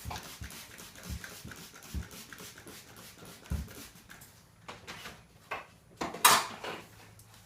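Scattered knocks and thumps with a few short scraping sounds, the loudest about six seconds in.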